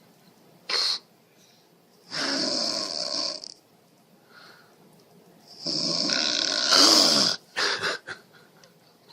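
Snoring: a short snort about a second in, then two long snores a few seconds apart, the second one louder, followed by a few short snorts.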